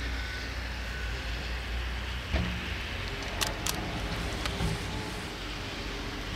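Fukui Railway Deki 11 electric locomotive, fitted as a snowplough, moving off from the station: a steady low rumble with a knock about two seconds in and two sharp high clicks a second later.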